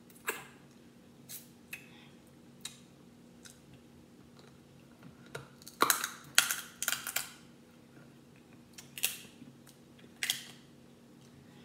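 Crab-leg shells cracking and snapping as they are bitten and pulled apart: scattered sharp cracks, the loudest a quick cluster about six seconds in, with a few more near the end.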